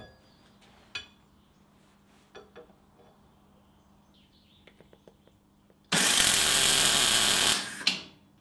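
A few light metal clicks as a steel rod and ball are set in a vise, then about six seconds in a MIG welder's arc crackles for about a second and a half, tack-welding the rod to the steel ball, and stops.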